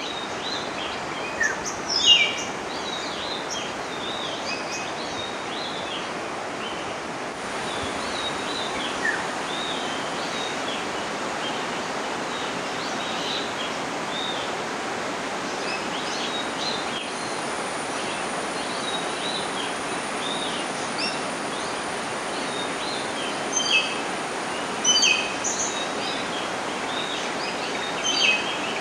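Many birds chirping and calling in short, quick notes over a steady rush of water, with a few louder calls about two seconds in and near the end.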